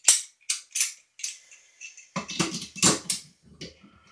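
Small metal and plastic flushometer handle parts being handled: several sharp clicks and clinks in the first second, then a cluster of knocking and scraping about two seconds in as the parts are fitted at the valve.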